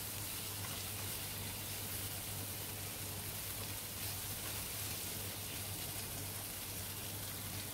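Marinated pork spareribs and garlic sizzling in oil in a nonstick frying pan: a steady, even hiss, with a low steady hum underneath.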